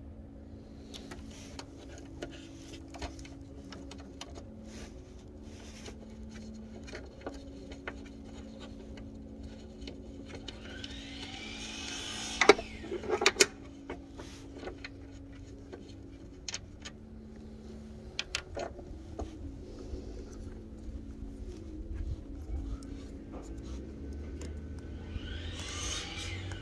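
Hand work on a pickup truck's hood-latch area while swapping the hood sensor: scattered small metal clicks and taps of a wrench and parts, with a louder sharp click and a few knocks just past halfway, over a faint steady hum. A brief rising whoosh comes twice, around halfway and near the end.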